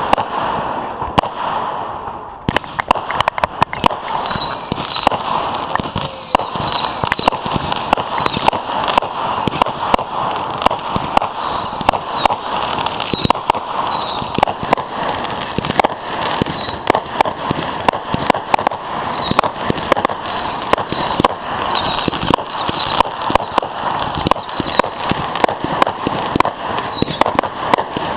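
Fireworks going off: a dense, continuous crackle of sharp pops. About four seconds in, short high whistles that fall in pitch join it, repeating every second or so.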